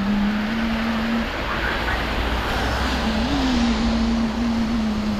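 A vehicle moving over a rain-soaked road: a steady hiss of tyres and water with a low hum that wavers in pitch and rises briefly about three seconds in.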